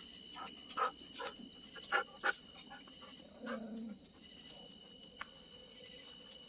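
Dogs giving a few short barks in the first couple of seconds and a brief low whine about halfway through, over a steady high trill of night insects.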